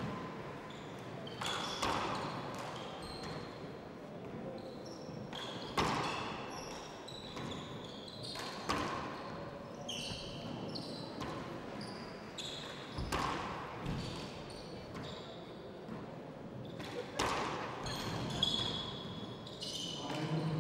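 A 40x20 handball rally: the small rubber ball is struck by hand and smacks off the walls and the wooden floor every second or two, with sneakers squeaking on the court between the hits.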